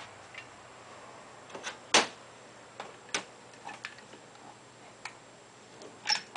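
Hand caulking gun clicking irregularly as its trigger is squeezed to push out a bead of sealant, with the loudest click about two seconds in.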